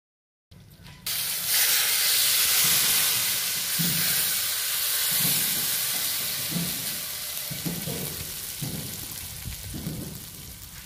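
Hot mustard-oil tadka with cumin, asafoetida, whole red chillies and mustard seeds sizzling as more spice goes into it. The sizzle starts loud about a second in and slowly dies down, with a soft low thud about once a second.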